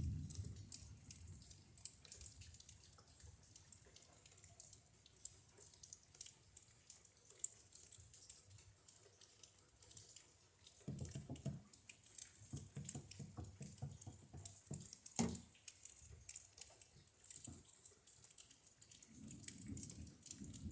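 Rain dripping and pattering steadily, with low rumbles of distant thunder swelling at the start, again a little past the middle, and near the end. A single sharp knock comes about two-thirds of the way through.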